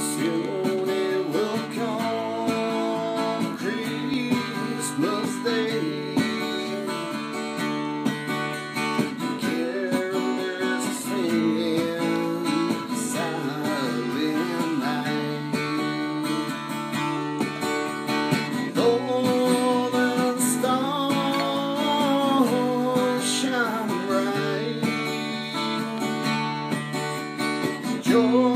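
A man singing while playing an acoustic guitar, his voice gliding over held chords.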